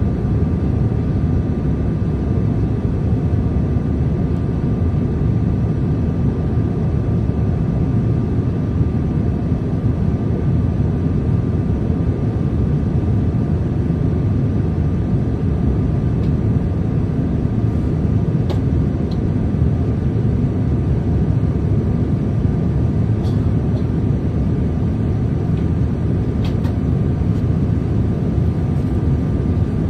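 Steady in-flight cabin noise of a Boeing 787 airliner, a deep rumble of jet engine and airflow with a faint steady whine over it. A few faint ticks come in the last third.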